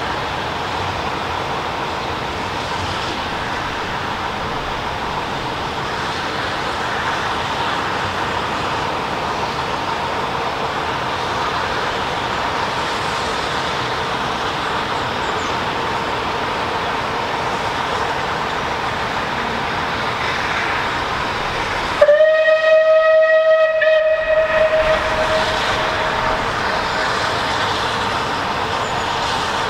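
Steam locomotive whistle, a Bulleid Battle of Britain class Pacific's, sounding one blast of about three seconds near the end, rising slightly in pitch as it opens and then fading, over a steady background noise.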